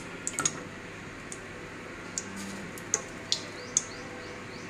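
Dried red chillies and a bay leaf frying in hot oil in a kadai: a faint steady hiss with scattered sharp pops and crackles, about half a dozen over the few seconds.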